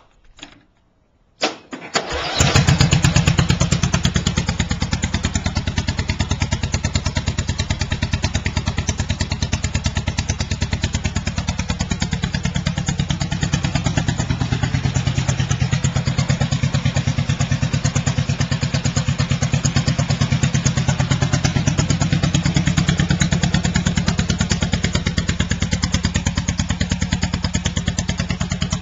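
1960s Toro racing lawnmower's engine being push-button started: a brief clunk, then it catches about two seconds in and runs steadily with a fast, even firing beat.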